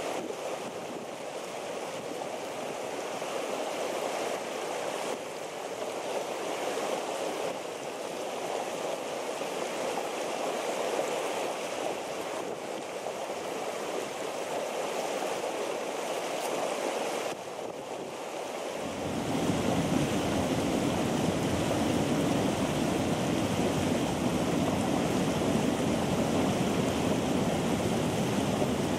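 Skovorodka hot spring's water boiling and bubbling up through the stones and running off, a steady rushing, bubbling noise. About two-thirds of the way through it gets louder and deeper.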